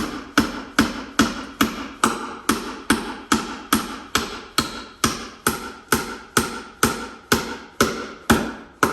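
Hammer driving cement-coated sinker nails into rough-cut hardwood, with steady, evenly paced blows about two and a half a second, each with a short ring.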